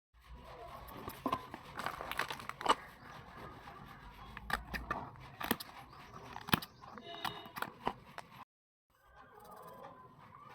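Craft items and their plastic packaging being handled, with rustling, scraping and a series of sharp clicks and taps. The sound cuts out briefly about eight and a half seconds in.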